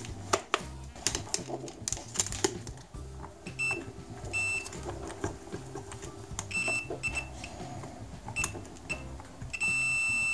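Digital multimeter's continuity buzzer giving short, broken beeps as the probes touch the shower heater's heating-element terminals. Near the end it gives one steady beep of most of a second as contact holds: the element conducts. Light clicks of the probes and background music underneath.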